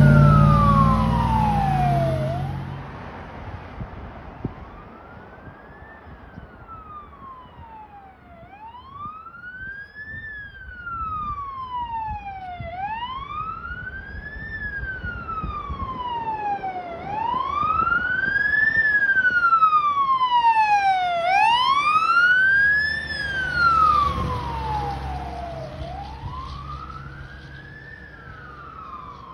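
Fire engine siren in a slow wail, sweeping up and down about every four seconds, growing louder as the truck approaches and passes, then fading as it drives away. A loud engine rumble from a fire engine passing close comes at the start, and a fainter rumble near the end.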